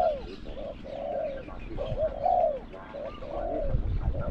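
Spotted dove cooing: a string of rounded, arching coos about every half second to a second, some with a short rolling trill.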